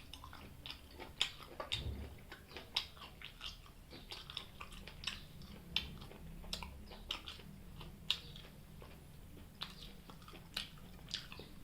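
Close-up chewing of fried chicken gizzard: wet, irregular mouth clicks and small crunches, several a second.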